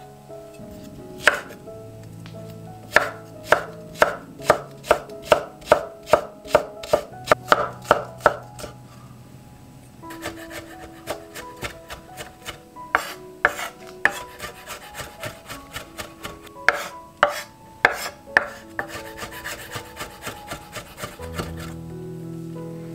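Chef's knife chopping green onions on a wooden cutting board: sharp knocks of the blade against the board, a steady run of about three a second after a few seconds, then shorter bursts, with lighter, quicker chopping near the end.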